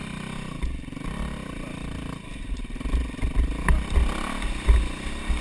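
Dirt bike engine running, its revs rising and falling as the bike rides into muddy water, with low rumbling buffets on the helmet-mounted microphone and a sharp click a little after halfway.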